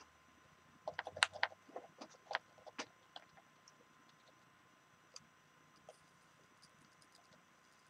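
Faint small clicks and taps from handling wires and a soldering iron on the workbench while a solder joint is made, bunched in the first three seconds, then only a few scattered light ticks.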